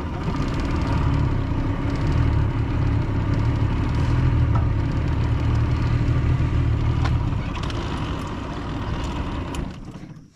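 Boat's outboard motor running steadily at low speed, then dying away near the end.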